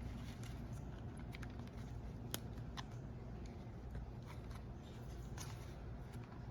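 Scattered small clicks and scrapes of a rubber tread covering being worked by hand onto a Roomba S9 drive wheel, over a low steady hum.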